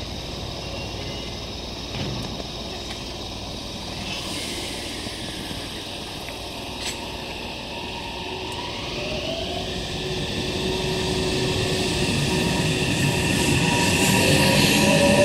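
Meitetsu 3300-series electric train pulling out of a station. From about nine seconds in, its traction motors whine, rising in pitch and growing louder as it gathers speed.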